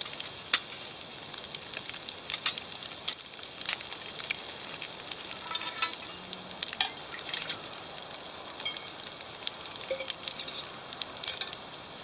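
Wood fire crackling inside a Bushbox XL twig stove: a steady hiss with many sharp, irregular pops throughout.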